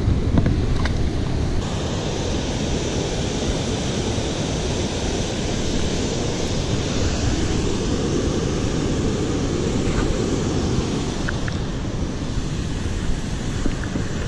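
Steady rushing of a large waterfall close to the microphone: a dense, even noise that drowns out everything else.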